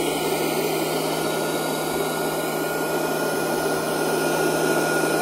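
Ryobi P755 18-volt cordless workshop blower running steadily: an even rush of air over a low hum, with a thin high whine from the motor.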